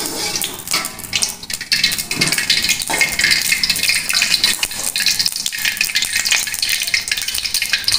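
Hot oil sizzling and crackling steadily in an aluminium wok, with a metal ladle stirring through it at the start.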